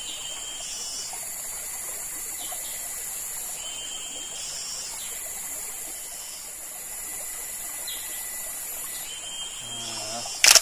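A shallow stream trickling over rocks under a steady, high-pitched insect chorus, whose higher calls start and stop every second or two. Near the end comes one sharp, loud click, the sound effect of the on-screen subscribe button.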